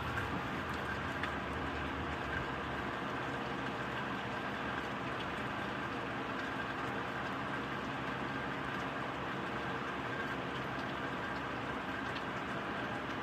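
Steady rain falling, an even hiss with a few scattered drops ticking.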